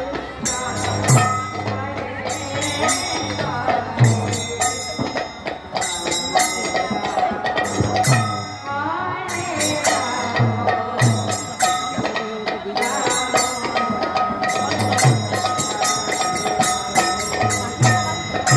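Instrumental kirtan music: a hand-pumped harmonium holds the melody in sustained reedy chords. A khol, a two-headed barrel drum, gives irregular deep bass strokes, and bright jingling metal strikes keep the beat.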